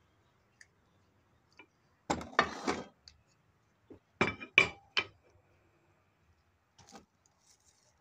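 Steel car parts clinking and knocking together as a wheel hub, steering knuckle and press adapter are set on a shop press. A quick cluster of clinks comes about two seconds in, then three sharp knocks about half a second apart, and a faint one near the end.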